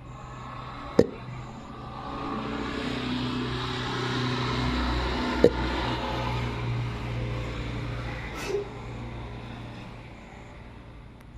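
A road vehicle passing by, its engine noise swelling and then fading over several seconds. Two sharp hiccups cut through it, about a second in and again in the middle.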